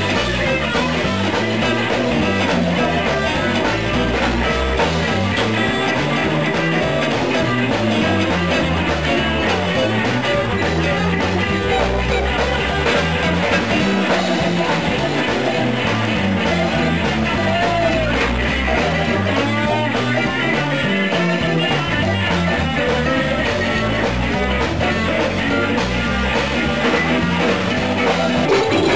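Live blues band playing: electric guitars over a repeating bass line that climbs and falls every couple of seconds.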